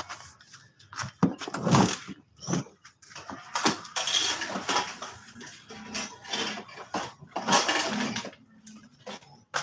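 Irregular rustling, scuffing and light knocks of handling noise, from a phone being carried against cloth and things being moved.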